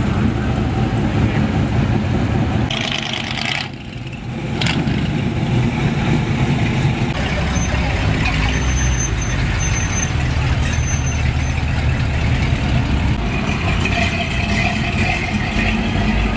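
Customized vintage pickup trucks driving slowly past one after another, their engines running with a steady low rumble. There is a short hiss about three seconds in.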